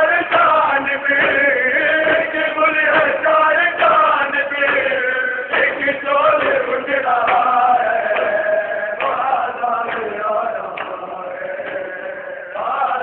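A crowd of men chanting a noha together, with open hands slapping bare chests (matam) to keep the beat. The slaps are heaviest in the first half.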